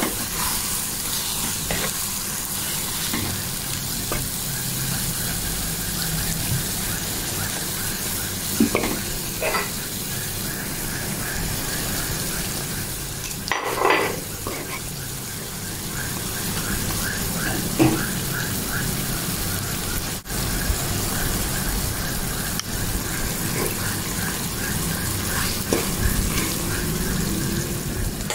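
Shredded banana blossom simmering in coconut milk in a wok, a steady sizzle, with a wooden spatula stirring through it. A few short knocks and clatters break in, the loudest about fourteen seconds in.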